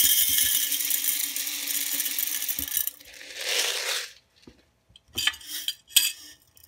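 Small gravel poured into a glass jar: a dense rattling hiss of stones hitting the glass and each other, stopping about three seconds in, then a shorter second pour. Near the end come a few separate clicks and clinks as the jar is tilted and the gravel shifts against the glass.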